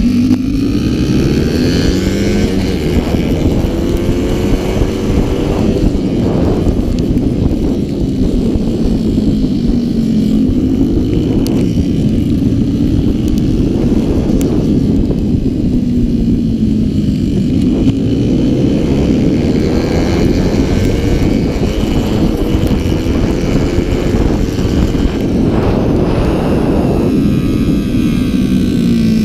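Small 70cc racing scooter engine revving hard through a lap. Its pitch climbs and drops again and again with throttle and gear changes, over a constant rush of wind on the microphone.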